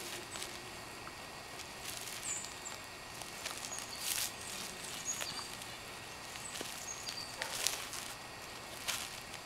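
A dog nosing and mouthing a newspaper in a plastic bag on wet pavement: scattered crinkles and scrapes of the bag, the loudest about four, seven and a half and nine seconds in, over a steady outdoor background hiss.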